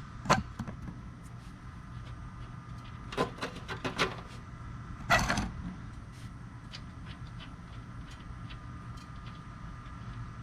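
Irregular metallic clicks and knocks of a socket wrench and the oil drain plug being worked loose, the loudest knock about five seconds in, then fainter scattered ticks, over a steady low hum.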